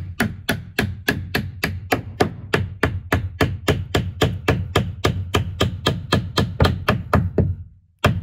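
Hammer tapping on the end of a wooden wedge, about four quick blows a second, driving the wedge in to push a bowed tongue-and-groove ceiling board tight against its neighbour. The tapping pauses briefly near the end, then starts again.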